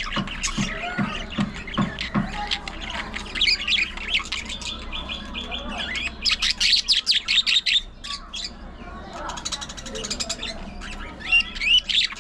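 Budgerigars chattering: a busy mix of chirps, rapid warbling trills and sharp squawks, with a dense burst of fast trilling about six to seven and a half seconds in.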